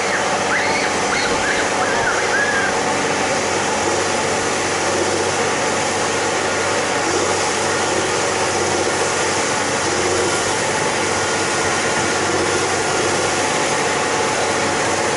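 Excavator's diesel engine running steadily with a continuous machine drone that holds at an even level throughout.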